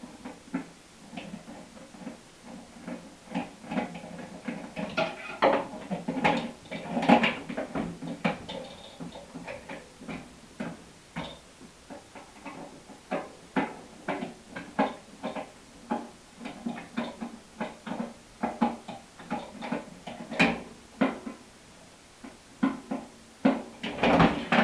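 Irregular clicks, clanks and rattles of metal parts and a screwdriver as screws are taken out of a microwave's housing to strip it for scrap.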